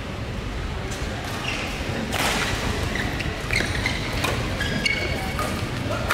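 Badminton doubles rally: sharp racket strikes on the shuttlecock and short squeaks of shoes on the court, over a steady low hum of the hall.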